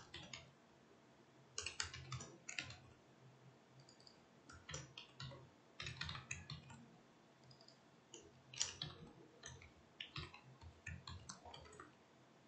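Computer keyboard typing, faint, in short bursts of keystrokes with pauses between.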